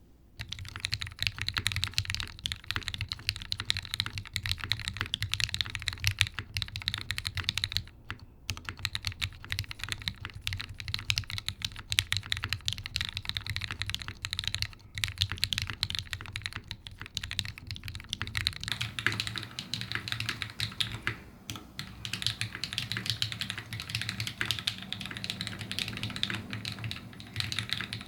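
Continuous typing on a TGR Jane V2 mechanical keyboard with lubed Gateron Ink V1 linear switches, a carbon fiber plate and GMK keycaps, with a brief pause about eight seconds in. About two-thirds of the way through, the recording switches from a studio microphone on a tripod off the desk to the camera's own microphone, and the sound changes character.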